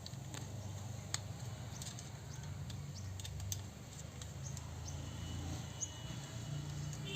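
Scattered light clicks and taps, irregularly spaced, over a low steady hum.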